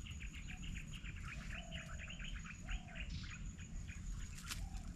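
Birds chirping in the forest: a quick run of short chirps for about three seconds, with a few lower calls. A steady high insect drone runs underneath, over a low rumble.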